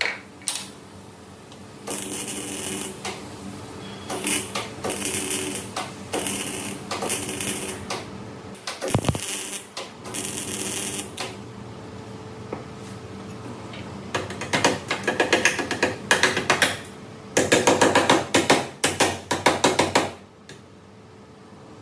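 Hand tools worked on the sheet metal of a car's A-pillar during dent repair: a series of roughly one-second scraping strokes, then, in the last third, runs of fast metallic tapping.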